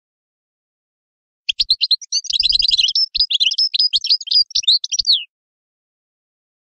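European goldfinch singing: a run of rapid, high twittering notes and quick downward sweeps that starts about a second and a half in and lasts about four seconds.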